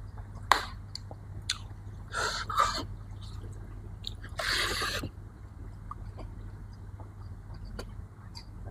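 A person chewing food close to the microphone, with small wet mouth clicks, a sharp click about half a second in, and two louder noisy bursts of eating, one about two seconds in and one about four and a half seconds in.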